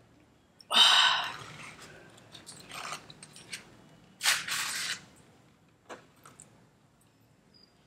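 A cardboard fast-food carton being handled and pulled open: a loud rustle about a second in, a few small clicks, then a short ripping burst a little after four seconds as the carton is torn open.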